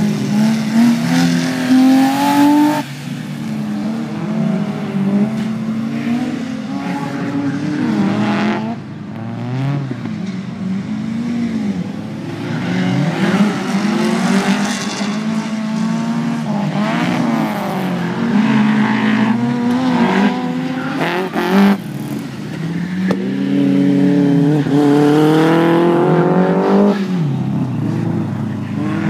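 Race car engines revving hard and easing off again and again through corners and gear changes: a Fiat Seicento, then a BMW E30 3 Series. The engine sound is loudest a few seconds before the end as a car passes close.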